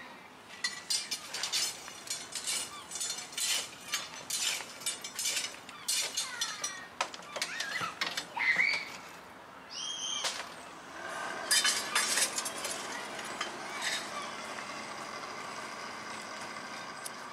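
Quick metallic clinks and rattles of tools and coal being handled beside a miniature steam locomotive, thinning out after about seven seconds. From about eleven seconds in, a steady hiss takes over.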